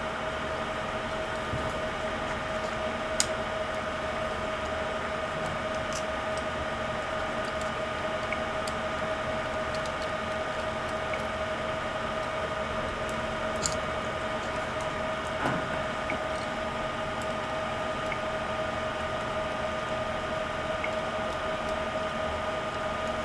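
Steady hiss with a constant high-pitched hum, broken by a few faint clicks and taps as the damaged screen panel of a Compaq Mini netbook is worked loose and lifted from its lid.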